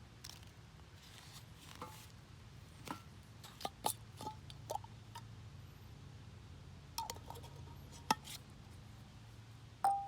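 Camp cookware clinking: scattered metal taps and clinks, several with a brief ringing note, the loudest near the end.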